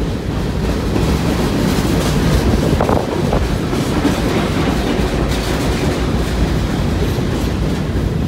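Freight train of empty centerbeam flatcars rolling past close by: a steady rumble and clatter of steel wheels on the rails, with a couple of sharper knocks about three seconds in.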